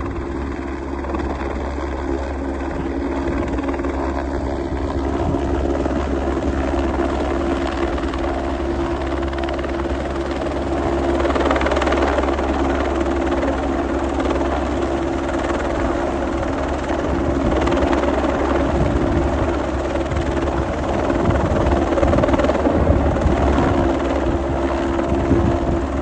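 Helicopter running steadily in flight, with a continuous rotor and engine rumble that swells a little now and then.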